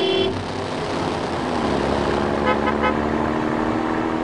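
Dubbed vehicle engine sound effect running steadily. A short horn-like toot comes at the start, and a quick run of short beeps about two and a half seconds in.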